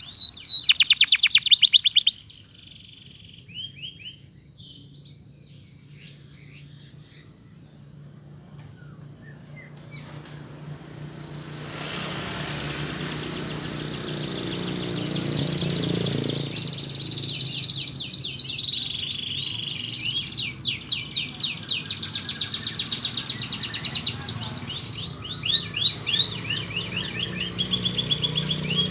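Domestic canary singing in fast, loud rolling trills that break off about two seconds in. A quiet pause with only faint chirps follows, then the song builds back up from about twelve seconds in, with loud rapid trills through the last third.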